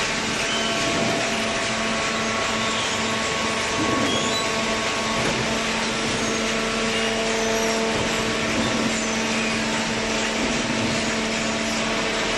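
Hydraulic baler machinery running: a steady mechanical noise with a constant hum and a few steady whining tones.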